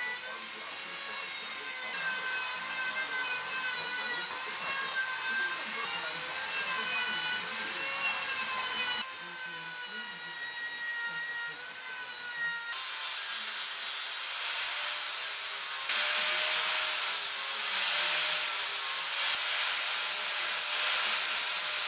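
Electric grinder working steel: a high motor whine whose pitch wavers with the load, over a rough grinding hiss that grows louder in the later part. The sound changes abruptly a few times.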